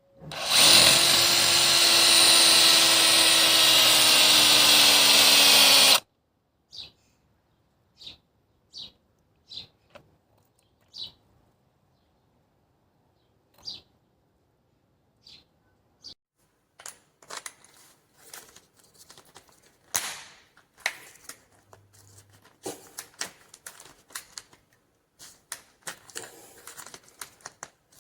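Black+Decker 18V brushless hammer drill running at speed for about six seconds, then stopping abruptly. Afterward a few short high chirps, then a run of clicks and rustling.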